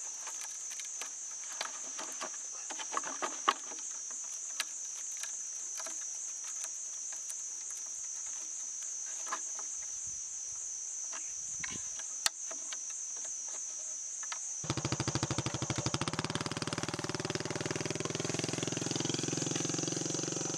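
Steady high-pitched insect drone, with dry rustles and light taps of bamboo strips being tied around bamboo poles on dry leaves. About fifteen seconds in, a small motorcycle engine cuts in, running steadily with a fast pulsing beat.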